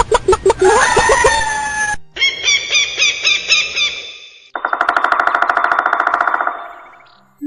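Bird-like calls in three short, abruptly cut sections. First dense chattering calls, then a repeated ringing phrase, then a fast, even trill that fades out near the end.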